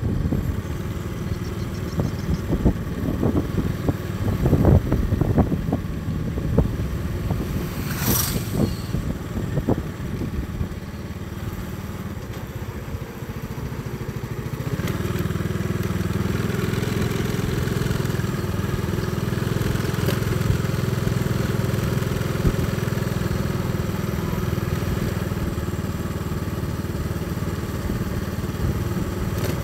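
A small motorcycle's engine running while it is ridden along a road, heard from the rider's seat. Over the first ten seconds there are irregular knocks and buffeting. From about halfway the engine note turns steadier and a little louder.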